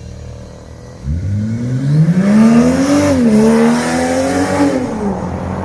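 BMW X6 40i's turbocharged 3.0-litre inline-six with a sport exhaust, accelerating hard: the exhaust note comes in about a second in and rises in pitch, dips briefly at an upshift about three seconds in, climbs again, then falls away near the end.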